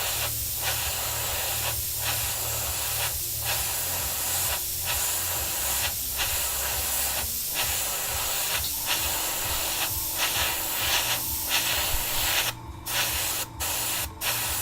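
Paint being sprayed onto a plastic model body: a continuous hiss broken by brief pauses about every second and a half as each pass ends, turning into a few short separate bursts near the end.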